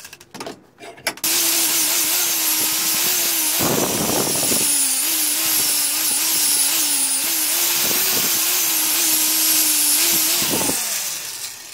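Angle grinder with a wire cup brush stripping rust from a steel hammer head. It starts about a second in and runs steadily, a loud hiss of wire on metal over the motor's hum, whose pitch dips as the brush is pressed in. It is switched off near the end and winds down.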